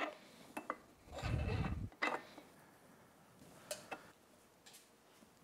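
Prop shaft and bearing carrier of a Mercury 40 HP two-stroke outboard being pushed into the lower-unit gear housing: a few light metal clinks and a short rubbing sound a little over a second in.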